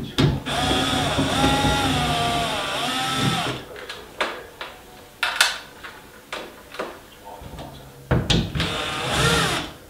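Cordless drill-driver whirring for about three seconds, its pitch wavering as the trigger is eased, backing out the LED ceiling light's fixing screws. A few clicks and knocks follow, and a second short whir comes near the end.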